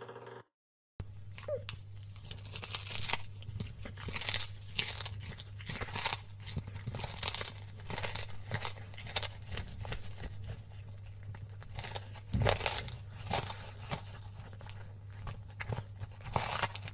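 A cat chewing a small raw fish: crunching, tearing bites at irregular intervals, over a steady low hum.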